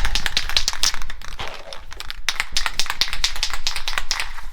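A dense, irregular run of crackles and clicks, many to the second, with brief lulls about one and a half seconds in and again near the end.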